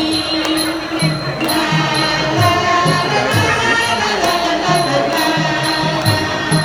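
Lao folk dance music with a steady low drum beat, regular high metallic ticks and a sustained melodic line over them.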